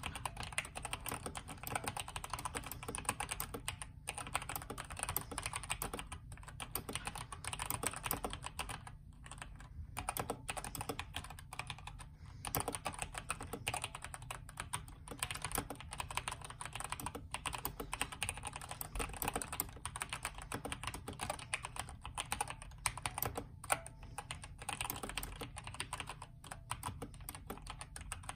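Steady fast typing on a Redragon K552 mechanical keyboard with stock Outemu red linear switches. Its case is dampened with polyfill and a tape mod on the PCB. The keystrokes run in a dense stream, broken by a few short pauses.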